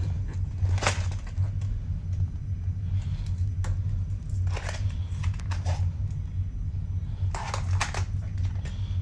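Small plastic toiletry items and a zippered fabric pouch being handled, making scattered clicks and rustles, over a steady low hum.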